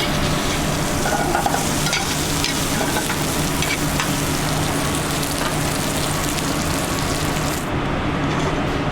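Cornmeal-breaded soft shell crab frying in a hot pan of olive oil: a steady sizzle with small pops and crackles over a steady low hum. The high hiss drops away near the end.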